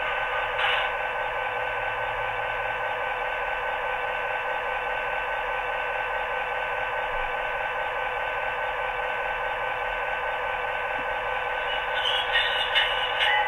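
Sound decoder in an HO scale EMD F3A model diesel locomotive, playing a steady idling prime-mover sound. There are a few clicks near the end.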